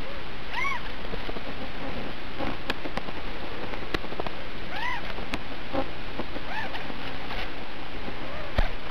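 Steady static hiss on the audio of an analog FPV video feed. It is broken by three brief tones that rise and fall in pitch and by a few sharp clicks.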